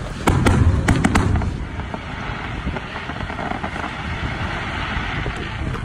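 Aerial firework shells bursting overhead: several sharp bangs in quick succession in the first second and a half, then a steady rushing noise.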